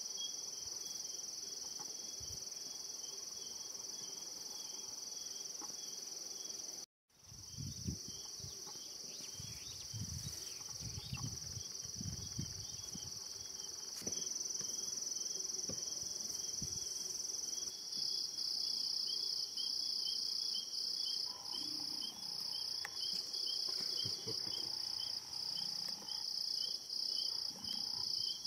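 Night insects trilling steadily and high-pitched. About two-thirds of the way in a louder insect joins, pulsing about once a second. The sound cuts out for a moment about a quarter of the way in, and there are some low irregular rumbles soon after.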